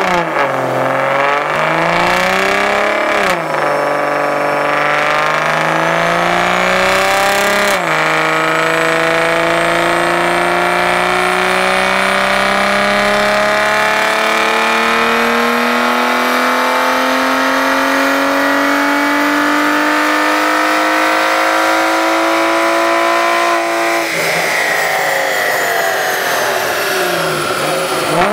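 Aston Martin DB9's 5.9-litre V12 with a custom exhaust, run hard on a chassis dyno. In the first eight seconds it revs up in short climbs broken by upshifts, then pulls in one long, slow rise in pitch for about sixteen seconds before the throttle closes and the revs fall away near the end.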